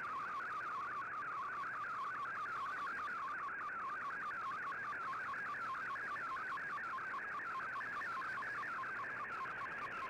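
Shortwave digital picture signal in Fldigi's MFSK picture mode, played through an Icom IC-R8600 receiver: a rapid, repeating warbling sweep of tone as the image is sent line by line, over faint hiss.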